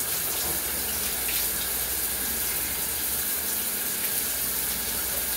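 Shower running, a steady hiss of spray falling close by onto a tiled wall.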